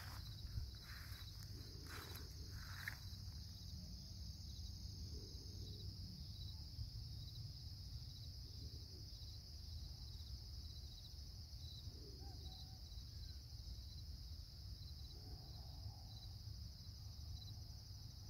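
Steady high-pitched chorus of insects trilling in a field, over a low rumble, with a few short clicks and chirps in the first three seconds.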